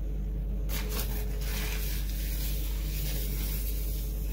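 Steady low hum with faint soft rubbing and handling noises from hands working items on a kitchen counter, a few light touches about a second in.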